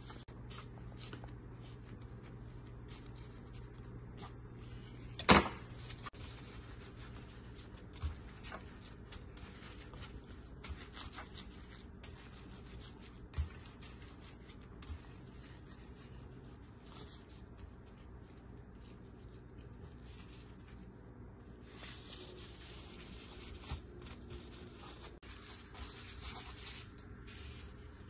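Soft rubbing and scraping of dough being rolled by gloved hands on a wooden cutting board, with one sharp knock about five seconds in and a few lighter taps after it.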